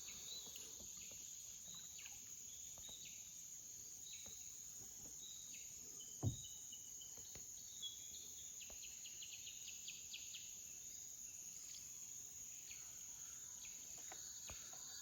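Steady high-pitched drone of tropical forest insects, with scattered short bird chirps and one sharp thump about six seconds in.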